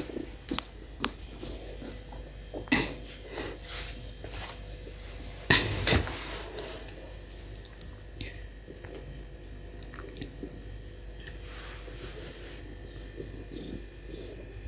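Several soft knocks and rustles, the loudest a pair about five and six seconds in, then a quiet stretch with faint small scratches and taps of kittens play-fighting and nipping on a rug.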